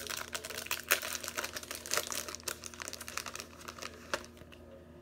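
The wrapper of a 2017 Donruss Optic football fat pack being torn open and crinkled by hand. The crackling is busiest over the first three seconds and thins out after about four, as the cards come out of the pack.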